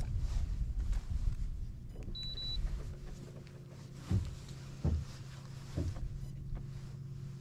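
Minn Kota electric trolling motor running with a steady low hum that sets in about two and a half seconds in, just after a short high beep. Low rumbling noise comes before the hum, and a few dull knocks on the boat fall between about four and six seconds.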